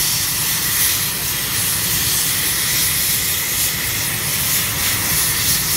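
UH-60 Black Hawk helicopter running on the ground with its main rotor turning, warming up before takeoff: its twin turboshaft engines give a steady high whine over the beat of the rotor.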